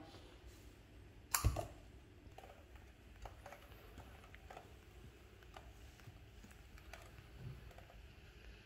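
A lipstick tube being uncapped with one sharp click about a second and a half in, then applied to the lips with faint, scattered small clicks.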